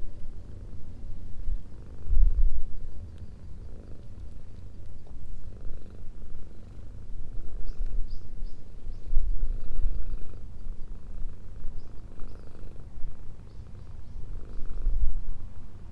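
Kitten purring steadily while it is being stroked, the purr swelling and fading every second or two with its breathing.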